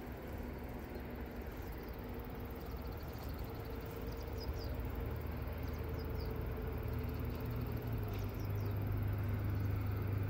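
A steady low mechanical hum with a few pitched lines, like a distant engine, growing louder from about eight seconds in. A few faint high squeaky chirps sound over it.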